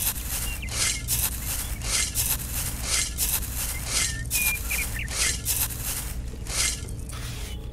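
A miniature metal shovel scraping into a sand pile and tipping sand into a toy trolley: a quick run of gritty scrapes and sand hisses, about two to three a second.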